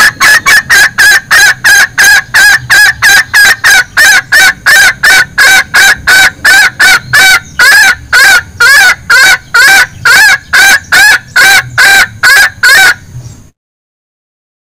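Female junglefowl's 'bekikuk' call, used as a lure for cock birds: a loud, rapid, even series of short clucking notes, about three a second, each rising and falling in pitch. It cuts off abruptly near the end.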